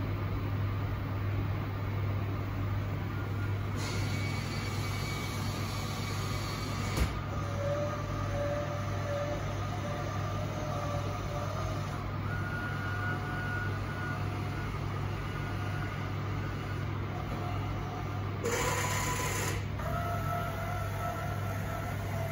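Pizza vending machine running its mechanism after baking, moving the finished pizza into a box for dispensing. It is a steady low hum with faint whirring tones that shift in pitch, a click about seven seconds in, and a short burst of hissing noise about eighteen seconds in.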